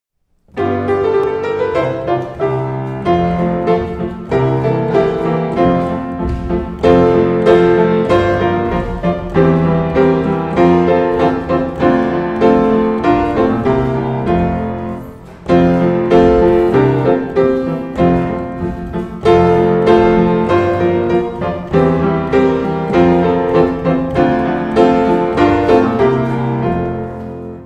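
Solo piano playing a ballet class accompaniment for petit assemblé jumps, in two phrases with a short break about halfway through.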